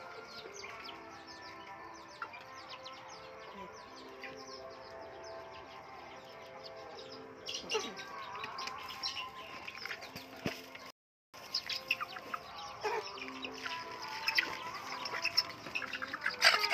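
Young chickens clucking and cheeping while pecking at scattered feed, with many quick sharp taps and chirps, over soft background music. The sound cuts out briefly about eleven seconds in.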